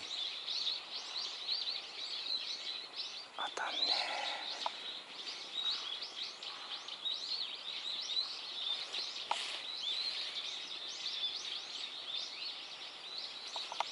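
Small birds chirping and calling continuously, many short high chirps overlapping one another. There is a faint click about nine seconds in.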